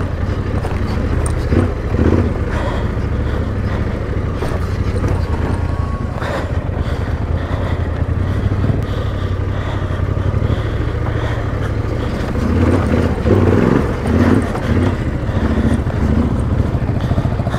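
Trail motorcycle's engine running under way on a dirt track, the throttle opening and closing, with louder surges about twelve to sixteen seconds in.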